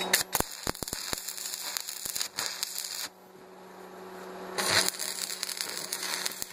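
Stick (arc) welding on steel: the electrode arc crackling and hissing as short tack welds are laid between a pipe and a plate. There is a brief lull about three seconds in, then the arc crackles again, louder.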